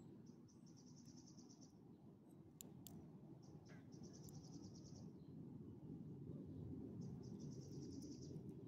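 Faint cricket chirping: three high, evenly pulsed trills, each about a second long, a few seconds apart, over a low steady background rumble.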